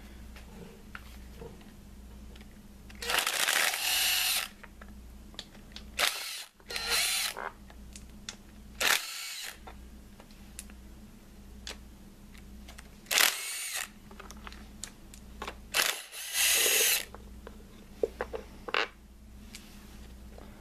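Handheld power driver spinning out the 10 mm bolts of a Honda D16 engine's lower timing cover, in several short runs of a second or less, its motor whine rising and falling.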